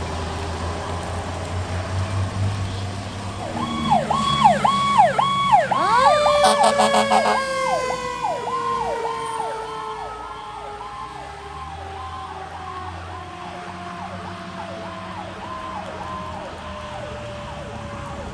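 Fire engine siren on Browndale Fire Company's Engine 43 as the truck goes by, over the truck's engine rumble: a quick rising-and-falling yelp about twice a second. About six seconds in, a second long wail joins it and slowly falls in pitch.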